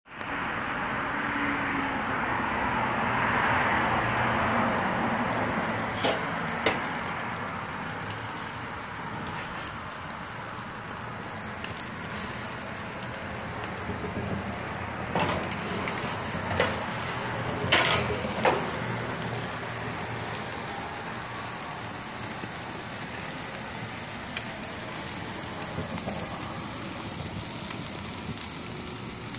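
New York strip steaks flaming on a Landmann grill: a steady hiss of fire and sizzling, louder in the first few seconds, with sharp pops and crackles now and then, most of them around the middle.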